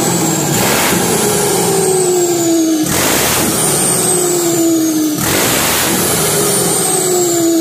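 Turbocharged truck engine free-revved hard three times, each rev followed by the turbo's high whistling howl falling in pitch as the engine and turbo spin down. The engine is being run to check a newly fitted turbocharger.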